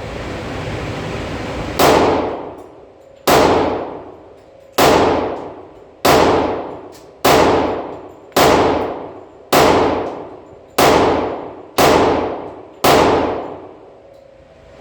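Ten shots fired one at a time from a Glock 20 pistol in 10 mm Auto, slow aimed fire about one shot every second and a bit, starting about two seconds in. Each sharp report rings out and dies away over about a second.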